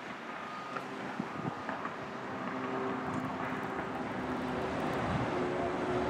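Steady outdoor din of distant engines and construction work, growing slowly louder, with a few faint knocks in the first two seconds and wind rumbling on the microphone.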